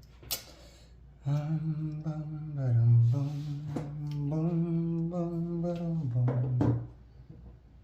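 A person humming a short tune in held notes that step up and down, starting about a second in and stopping near the end, with a sharp click just before it.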